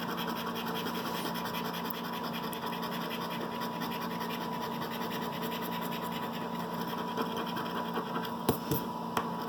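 Steady scratching of the coating off a scratch-off lottery ticket, with a few light taps near the end.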